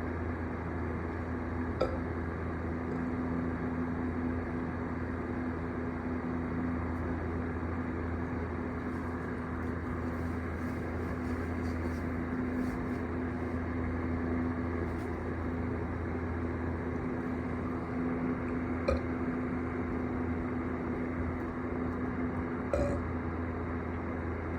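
A steady low mechanical hum with a constant tone, broken by three short clicks or pops, about two seconds in and again near the end.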